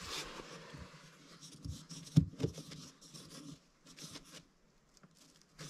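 Hands fitting a plastic fuel filter onto a snowmobile carburetor: soft, scattered clicks and scrapes of plastic on metal, with one sharper click about two seconds in.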